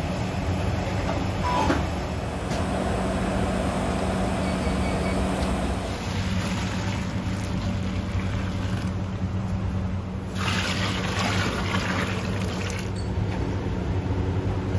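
Steady kitchen background noise: a constant low drone under an even rush. A brighter hiss comes in about ten seconds in and lasts a couple of seconds.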